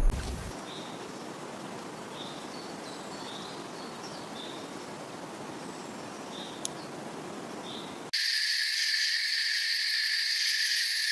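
Soft forest ambience with a faint hiss and a few short, high bird chirps. About eight seconds in, an abrupt cut brings a louder, steady chorus of insects, a high buzzing drone held at several fixed pitches.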